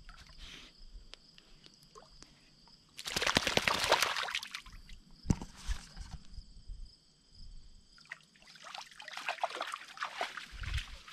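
A dog splashing through shallow lake water: one loud burst of splashing about three seconds in, and a longer run of splashes near the end.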